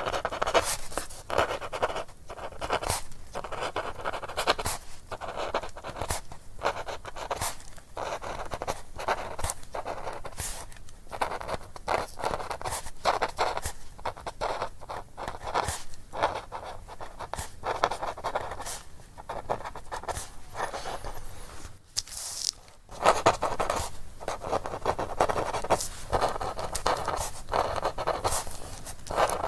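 Dry feather quill scratching across parchment in a quick series of scribbled and writing strokes. About three quarters of the way through there is a short pause, then a sharp tap before the scratching resumes.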